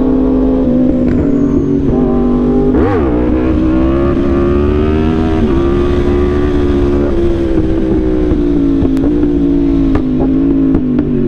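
Yamaha R1 sport bike's inline-four engine running at steady revs under the rider, with a quick up-and-down blip in revs about three seconds in; after that the pitch sinks slowly.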